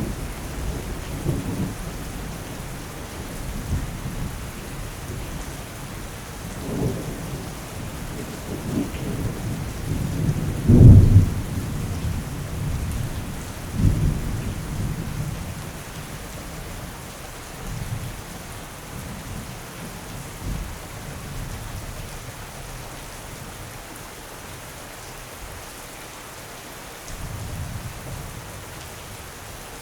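Steady rain with thunder rolling over it. The loudest thunderclap comes about eleven seconds in, with another sharp one a few seconds later. The rumbles then die away to rain alone, apart from a faint roll near the end.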